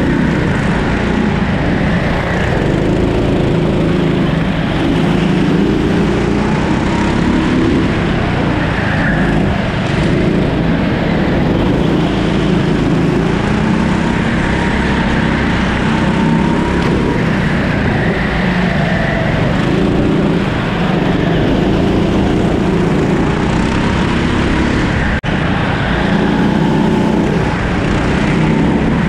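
A Rimo rental kart's 13 hp engine at racing speed through a lap, its pitch repeatedly rising under throttle and falling off into the corners.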